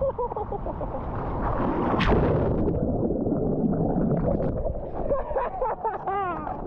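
Water rushing and wind on the microphone while surfing a wave, with a sharp slap about two seconds in. A short wavering tone is heard near the end.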